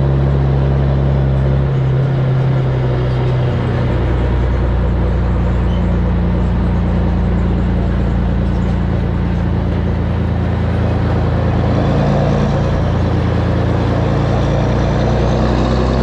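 Volvo N12 truck's diesel engine running under way through a loud open exhaust, heard from outside on the truck. The engine note shifts a few times, about two and four seconds in and again near twelve seconds.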